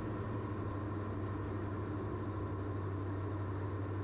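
Steady drone of a Diamond DA42's twin propeller engines in level flight, with an even low hum and no change in pitch or level.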